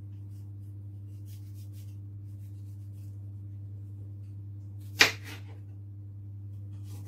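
Kitchen knife slicing a tomato on a plastic cutting board: a few faint taps, then one sharp knock of the blade on the board about five seconds in. A steady low hum runs underneath.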